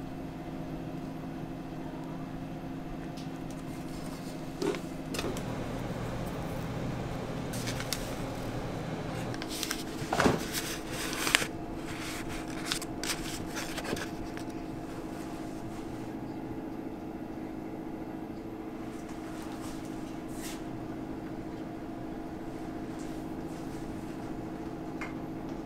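Steady hum of running kitchen machinery with several held tones, broken by a few sharp clicks and knocks, the loudest about ten and eleven seconds in.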